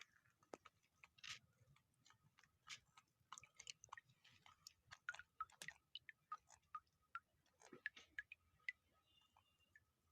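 Faint, irregular small clicks and crackles, several a second, over near silence.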